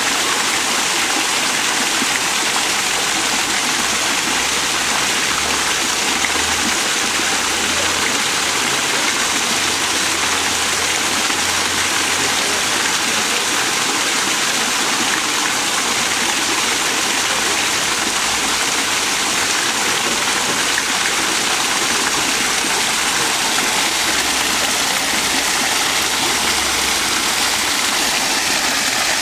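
Small waterfall splashing steadily into a pond, an even rush of falling water.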